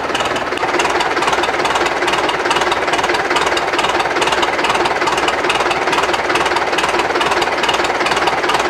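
UTB 650 tractor's four-cylinder diesel engine running steadily with a fast, even diesel clatter.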